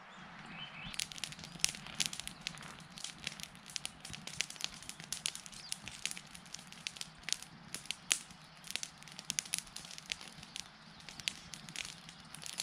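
Wood campfire crackling, with irregular sharp pops coming thick and fast from about a second in.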